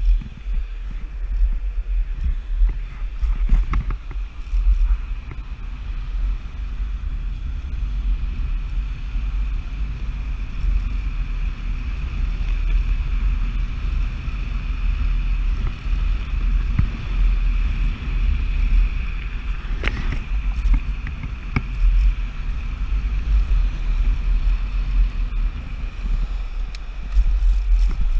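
Ride on a Nanrobot Lightning dual-motor electric scooter: heavy wind buffeting on the microphone, a steady high whine from the motors, and occasional knocks as the solid tyres hit bumps in the pavement.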